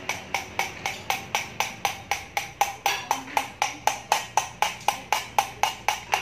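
Valve being lapped into its seat in an Isuzu Panther diesel cylinder head, tapping against the seat about four times a second, each tap with a short metallic ring.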